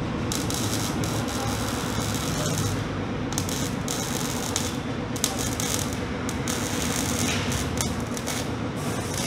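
Welding on a car's exhaust downpipe: crackling, sizzling hiss in short runs that start and stop every second or so, over a steady low hum. The weld is sealing an exhaust leak at the downpipe.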